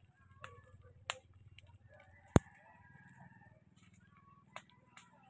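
Open fire of cut weeds and brush crackling, with a handful of sharp pops; the loudest is a single sharp crack about halfway through.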